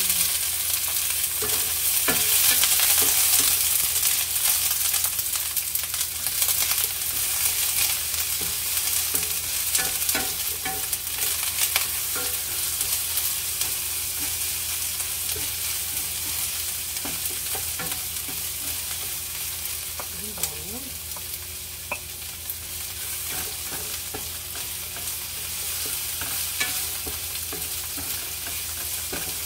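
Freshly added sliced onions sizzling in hot oil in a nonstick frying pan, stirred now and then with a wooden spatula that clicks and scrapes against the pan. The sizzle is loudest at first and slowly dies down.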